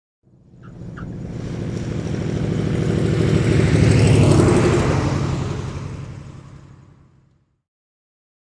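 Propeller aircraft passing by with its engine running: it grows louder for about four seconds, peaks, then fades away by about seven and a half seconds in.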